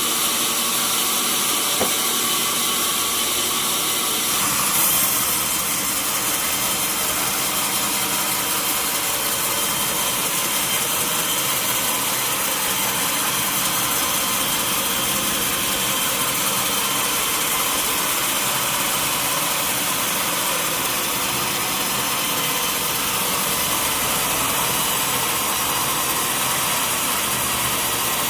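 Sawmill machinery running steadily, with a brief louder burst about five seconds in.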